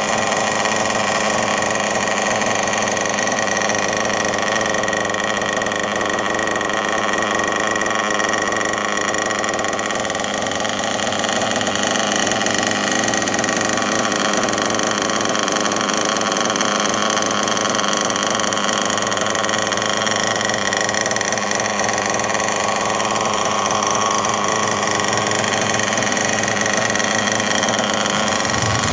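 Small nitro (glow-fuel) engine of a 1/8-scale RC off-road buggy idling steadily after being restarted, with no revving.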